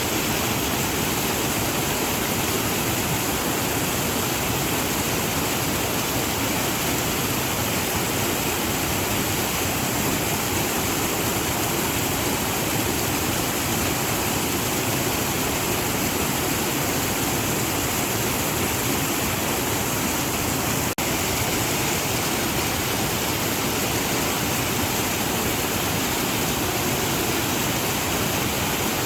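Waterfall rushing steadily, an even, unbroken roar of falling water with a split-second dropout about two-thirds of the way through.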